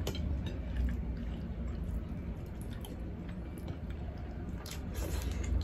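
Close-miked chewing of stewed pork hock and rice, eaten by hand. A few sharp little clicks are scattered through it, over a steady low hum.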